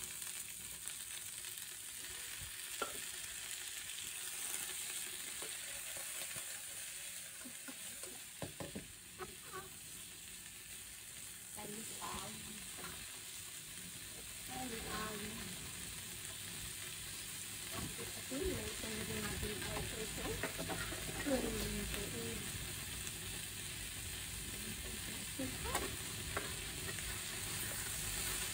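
Choy sum stalks sizzling in hot oil in a stainless steel wok while being stir-fried, with scrapes and knocks of a nylon spatula against the pan.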